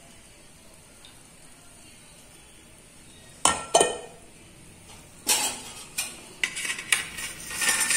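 A steel slotted ladle clinks and scrapes against a stainless steel kadai several times as a fried adhirasam is lifted out of the hot oil. The clinks start about three and a half seconds in, after a stretch of low steady background.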